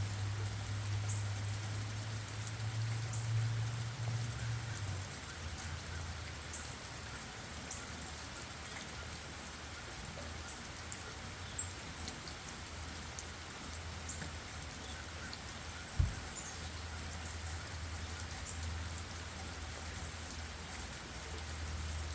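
Steady light rain falling on leaves and ground, with scattered drips tapping. Under it runs a low rumble, strongest in the first few seconds, and about three-quarters of the way through there is a single dull thump.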